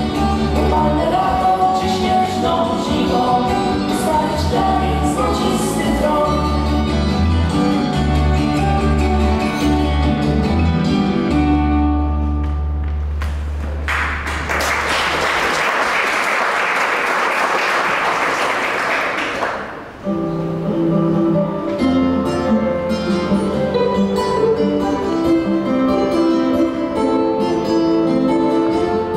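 A live acoustic folk song for acoustic guitars, violin and a woman's voice comes to an end on a held low note, followed by about six seconds of audience applause that cuts off abruptly. After a short gap, acoustic guitars and violin start the next piece.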